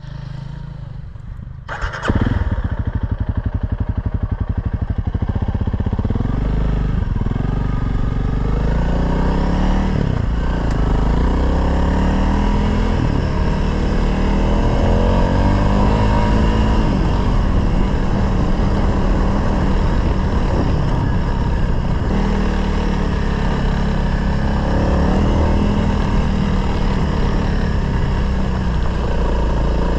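Motorcycle engine running, with a sharp knock about two seconds in. The engine keeps a steady, even beat for a few seconds, then its speed rises and falls over and over.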